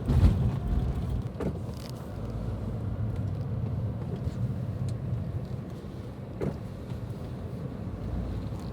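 Steady low road rumble of a car driving, heard from inside the cabin, with a couple of faint knocks.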